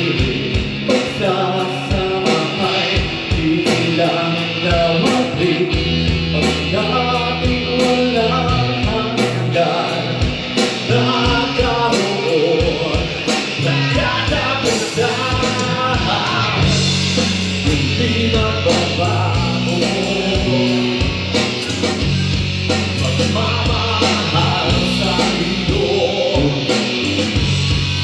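Live band playing a pop-rock ballad: a male vocalist singing into a microphone over electric guitar, bass and a steady drum beat.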